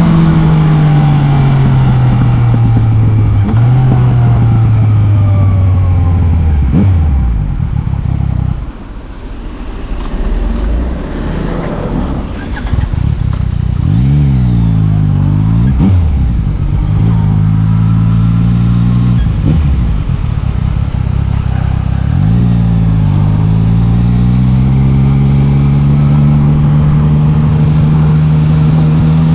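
Yamaha MT-09 three-cylinder motorcycle engine on the move. The revs fall off-throttle for several seconds and dip low about a third of the way in. A few quick rises and falls in revs follow in the middle, and the engine pulls with steadily rising pitch over the last several seconds.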